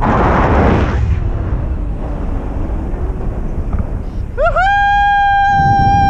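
Wind buffeting the action camera's microphone in paragliding flight, with a gust in the first second. Near the end, a loud pitched tone comes in: two quick rising chirps, then one steady held note.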